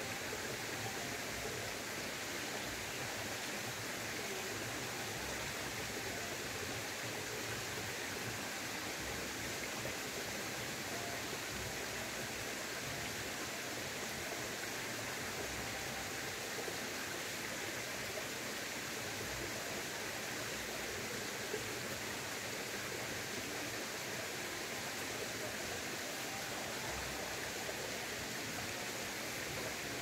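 Mountain valley stream running steadily, an even rush of water.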